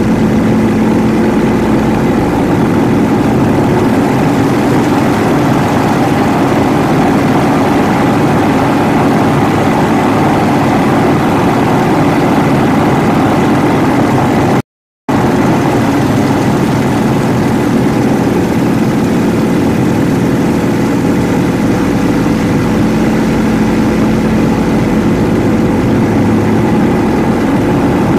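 Yak-52's nine-cylinder radial engine and propeller running steadily, with an even drone. About halfway through, the sound drops out completely for about half a second.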